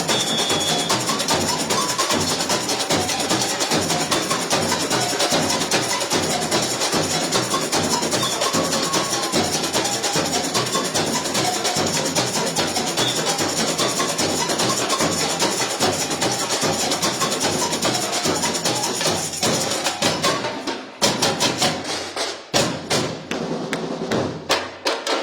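Samba bateria, a full drum corps, playing a dense, driving samba groove. About twenty seconds in the continuous groove breaks off into separate accented strokes with gaps between them, a break in the rhythm.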